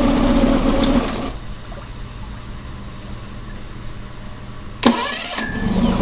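Tohatsu 20 hp fuel-injected four-stroke outboard running, then shut off about a second in. After a few seconds of quiet it is cranked and catches near the end, settling into a steady run.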